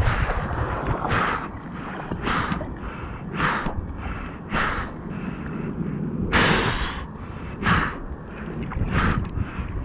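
A person breathing hard in quick, hissing breaths about once a second, one longer breath a little past halfway, over low wind rumble on the microphone.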